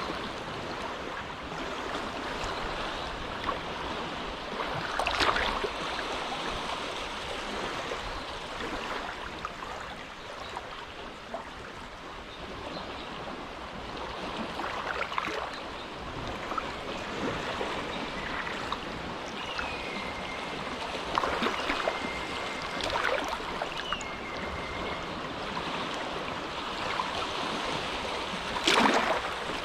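Small, gentle waves lapping at the water's edge of a sheltered inlet: a steady wash of water broken by a few louder splashes, the loudest near the end.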